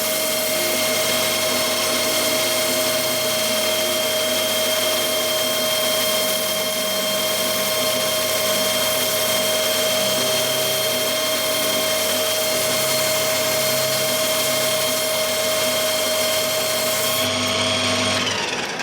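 A high-speed power tool running steadily with a whine and a hiss while it takes metal off a steel drive shaft. The hiss stops about 17 seconds in and the motor winds down near the end.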